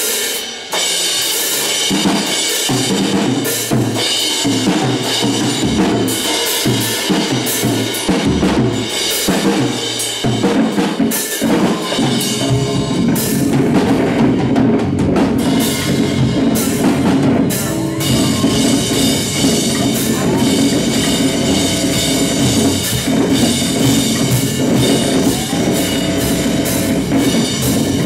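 Loud live noise-rock band playing: a drum kit pounded with bass drum, snare and crashing cymbals over an electric bass guitar. The low end grows heavier and denser about twelve seconds in.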